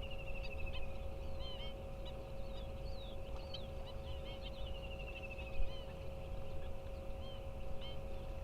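Many wild birds chirping and whistling in a wetland chorus. A rapid descending trill comes twice, at the start and about halfway through. Underneath are a steady hum and a low rumble.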